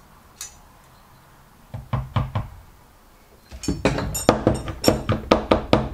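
Aluminium carburettor throttle body knocked repeatedly against a workbench mat: three knocks about two seconds in, then a quicker run of about ten sharp knocks, roughly four a second, near the end.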